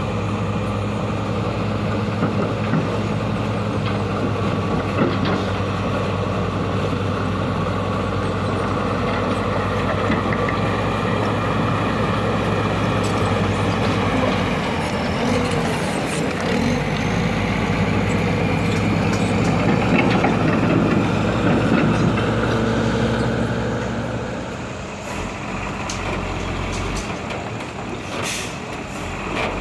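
Diesel engines of heavy road-construction machinery running steadily, dropping in level near the end.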